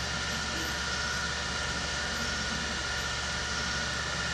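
Steady room noise: an even hiss with a low electrical hum, with no separate events.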